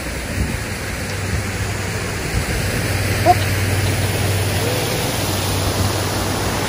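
Steady rushing of water pouring over a small dam spillway on a creek, growing slightly louder.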